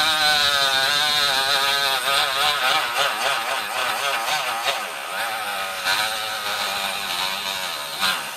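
Harbor Freight Drill Master mini rotary tool with a cutting wheel running against a wooden board, its motor whine wavering in pitch as it strains under load. The wheel is only cutting a groove into the wood.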